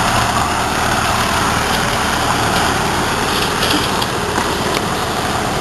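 Farm tractor engine running steadily as it pulls a hay-ride wagon past.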